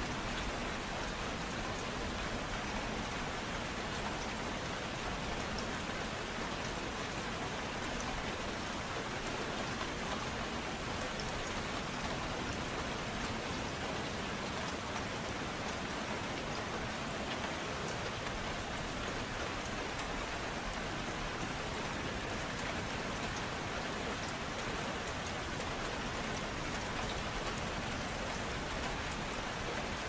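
Steady, gentle rain falling, with small drop ticks scattered through it and no thunder or music.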